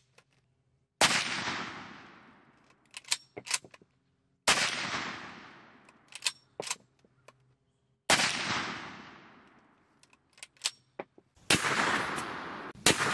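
Three .44 Magnum rifle shots from a Ruger 96/44 lever-action carbine, about three and a half seconds apart, each report dying away over a second or so, with short metallic clicks of the lever being worked between shots. Near the end another loud bang follows.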